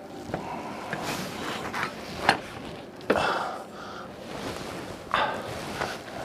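Knife cutting hot boiled pork against a cutting board: a few sharp, irregularly spaced knocks.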